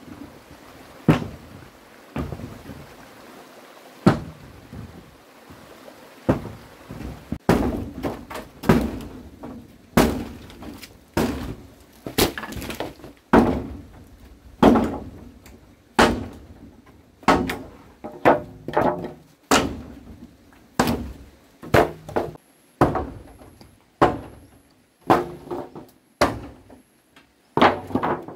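Repeated blows of a hand tool striking: a few spaced a couple of seconds apart, then from about seven seconds in a steady run of about one and a half strikes a second, some with a short ringing tone.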